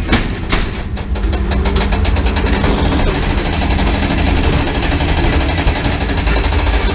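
Ghost train car rattling and rumbling along its track, with a few sharp knocks in the first second.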